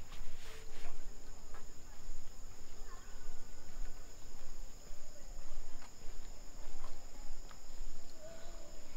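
Steady high-pitched insect chorus, holding two even tones without a break, over a low uneven rumble with a few scattered light taps.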